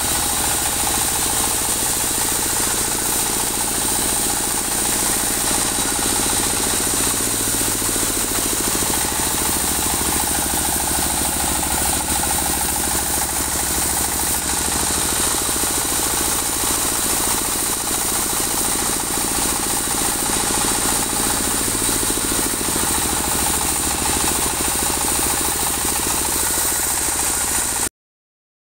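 Engine-driven band sawmill running steadily, its engine note shifting in pitch twice. The sound cuts off suddenly near the end.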